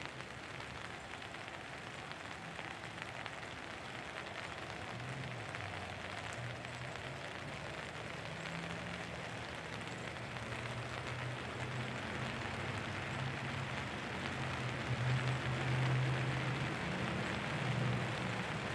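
Steady outdoor background hiss with a low engine hum, like passing traffic, that builds from about five seconds in and is loudest near the end.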